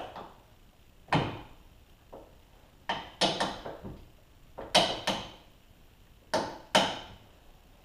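A series of sharp metallic knocks and clunks, about ten, several in quick pairs, as the front strut and sway bar end link are worked into place by hand during reassembly.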